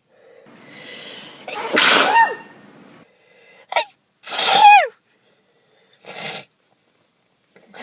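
A person sneezing twice from allergies. The first sneeze follows a drawn-in breath, and both end in a voiced cry that falls in pitch. A shorter breathy burst comes near the end.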